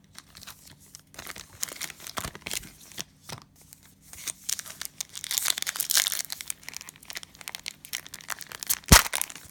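Cellophane wrapper of a trading-card cello pack crinkling and tearing as it is opened and handled, thickest in the middle, with one sharp click shortly before the end.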